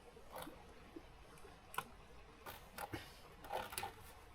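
A few faint, scattered knocks and scrapes of wood and brush being handled, as a length of wood is pushed through a shelter's woven wall.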